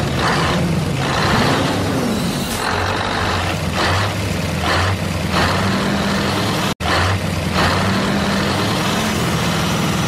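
Heavy truck engine running steadily, its pitch stepping up and down, with several short hissing bursts like air brakes letting off. The sound cuts out for an instant about seven seconds in.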